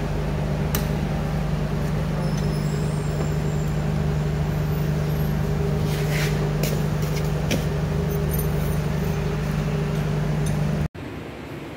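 Honda Spacy scooter's single-cylinder four-stroke engine running steadily, a constant even hum with a few light clicks over it; the sound cuts off abruptly near the end.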